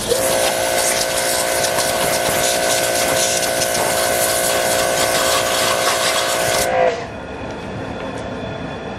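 Pressure washer jet blasting the last bits of meat off a boiled goat skull on concrete: a loud steady hiss of spray with a steady whine under it. The spray cuts off suddenly about seven seconds in.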